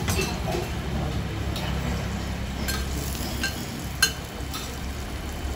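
Scattered light clinks over a low steady hum, the sharpest about four seconds in.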